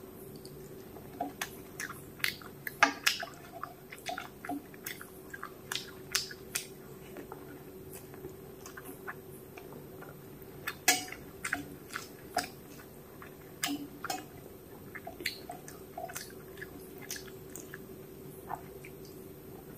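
Close-up eating sounds: wet smacks and clicks of chewing, along with fingers squishing rice mixed with fish curry on a metal plate. They come in irregular clusters over a faint steady hum.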